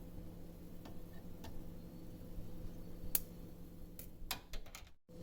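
Oil heating with curry leaves, chopped onions and seeds in an iron kadai, giving off sparse faint pops and crackles, a few single ticks and then a quick run of them about four seconds in, over a faint steady hum.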